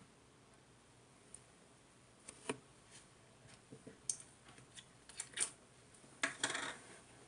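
Irregular light clicks and taps, with a quick cluster of them near the end.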